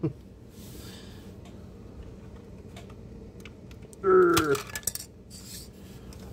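Faint clicks and light rubbing of a plastic model car being handled and its hood lifted off, over a steady low room hum. About four seconds in, a short spoken sound, a brief word or murmur, is the loudest thing.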